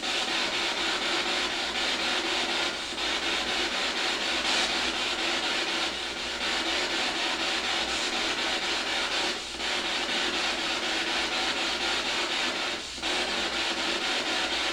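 Spirit box sweeping through radio stations, giving a steady hiss of radio static through a small speaker. The static briefly drops out five times as the sweep jumps between frequencies.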